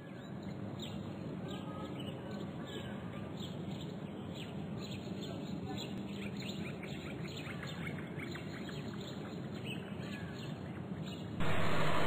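Birds chirping in short repeated calls over a steady background noise. Near the end the sound cuts suddenly to a louder, fuller noise.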